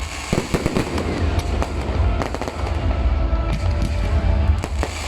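Fireworks display: a rapid, irregular run of bangs and crackles over a steady low rumble.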